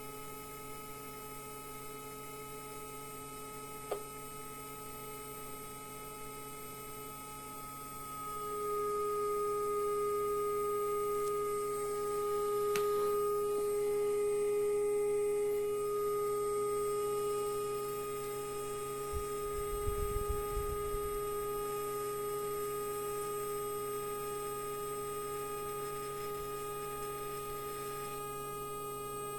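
A steady pure test tone of about 430 Hz, with fainter higher tones alongside, growing louder about eight seconds in. A single click about four seconds in and a short run of low knocks about twenty seconds in.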